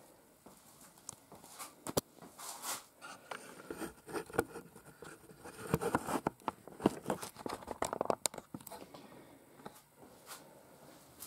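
Handling noise from a camera being moved and set up: irregular rustling, scraping and sharp clicks, busiest in the middle, with a small room's echo.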